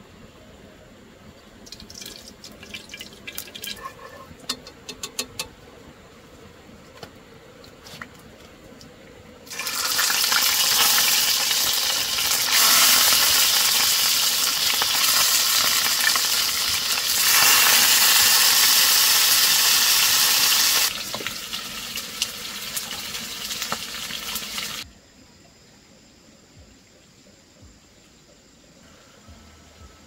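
Fish steaks sizzling loudly in hot oil in a wok. The sizzle starts abruptly about ten seconds in and cuts off about fifteen seconds later, after a few seconds of scattered crackles and clicks.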